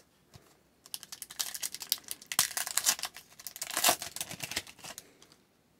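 Foil wrapper of an Upper Deck Extended Series hockey card pack being crinkled and torn open by hand. It is a dense run of crackling that starts about a second in and stops shortly before the end.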